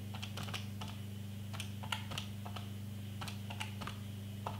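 Keys of a handheld electronic calculator being pressed: about a dozen short, irregular clicking taps, over a steady low hum.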